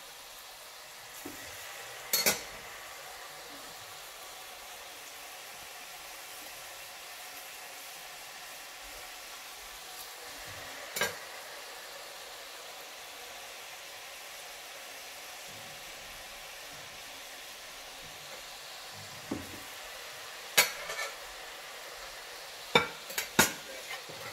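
Murukku dough deep-frying in hot oil in a wok: a steady sizzle. A few sharp clinks of a utensil against cookware cut in, one a couple of seconds in, one about midway and several close together near the end.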